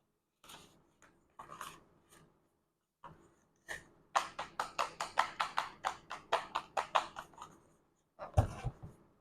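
Quick, even tapping at about five taps a second, after a few scattered knocks and handling sounds, then a heavier thump near the end.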